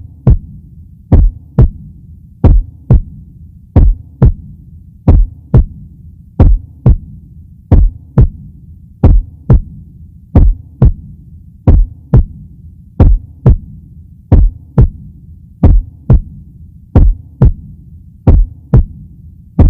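Heartbeat sound: a steady double thump, lub-dub, repeating about every 1.3 seconds over a low hum.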